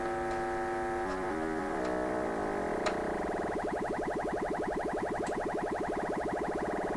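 Sweep-generator test tone playing through the PYE 39HC valve radio's loudspeaker: a buzzy tone thick with overtones that steps in pitch a couple of times in the first two seconds, then turns into a rapid, even flutter. A faint click comes about three seconds in.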